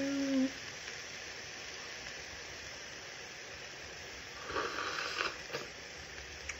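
Food sizzling in a stainless steel frying pan, a steady hiss, while pineapple juice is squeezed into it. About four and a half seconds in comes a louder rush of sizzling, followed by a couple of sharp clicks.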